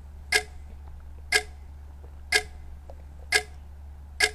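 Countdown clock ticking once a second, each tick a sharp, bright click with a brief ringing pitch, five ticks in all, counting down the seconds before a quiz question. A steady low hum runs underneath.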